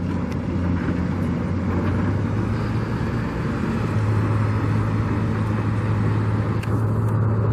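A steady, low engine drone that grows a little stronger about halfway through, over a constant wash of outdoor noise.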